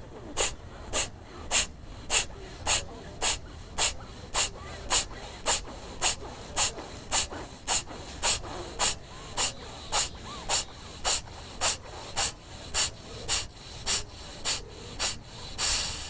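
Kapalbhati breathing through the left nostril: a steady train of short, forceful nasal exhalations, a little under two a second, with one longer, louder exhalation near the end that finishes the set of thirty strokes.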